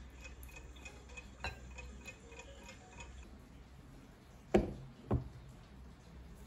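A plastic cup of iced coffee set down on a wooden coaster: two knocks about half a second apart, the first louder, a little past the middle. Before it, faint regular ticking and a single light click.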